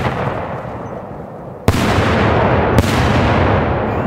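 Two 4-inch salute shells bursting in the air about a second apart, each a sharp, loud bang followed by a long rolling echo off the valley.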